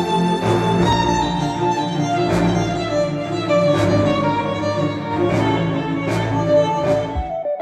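Cinematic orchestral music led by violins over a bowed string section with cello, played back through hi-fi bookshelf speakers. Near the end it cuts to a different track with plucked guitar notes.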